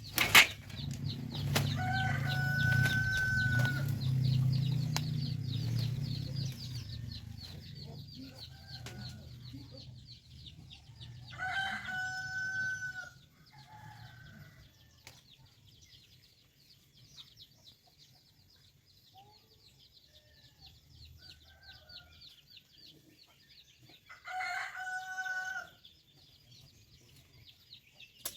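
A rooster crows three times, each crow a held call of about a second and a half, spread across the stretch. Under the first crow a low rumble dies away over the first ten seconds or so, and a sharp knock comes right at the start.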